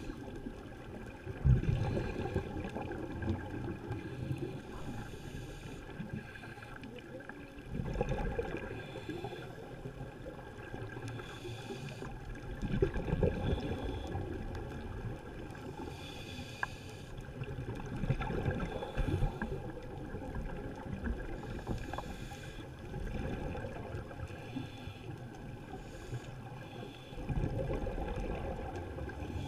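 Underwater ambience through a camera housing: a scuba diver's exhaled bubbles gurgle up in swells every four to six seconds over a steady hiss.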